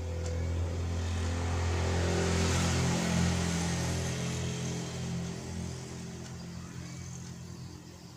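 A motor vehicle's engine running as it passes close by, growing louder to a peak about two to three seconds in and then fading away.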